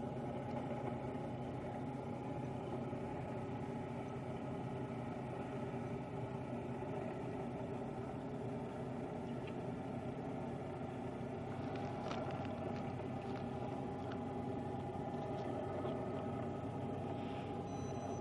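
An engine idling steadily, an even drone that holds one pitch, with a couple of light knocks about twelve seconds in.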